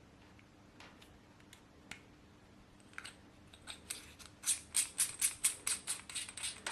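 Small plastic clicks from handling the BOYA BY-M1 lavalier microphone's battery housing while fitting its battery: a few scattered clicks, then a fast, even run of sharper clicks, about four a second, for the last two seconds or so.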